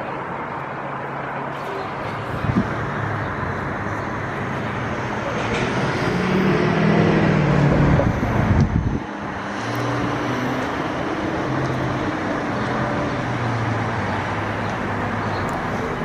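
Outdoor traffic noise: a steady hum of vehicle engines. One vehicle grows louder and passes close about six to nine seconds in, then the sound drops off suddenly. There is a short knock a couple of seconds in.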